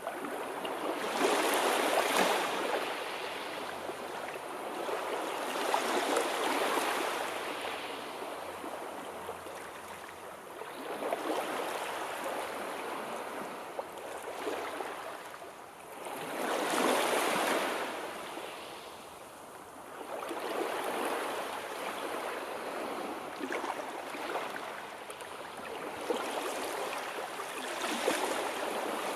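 Sea waves washing onto the shore, a rushing noise that swells and ebbs about every four to six seconds.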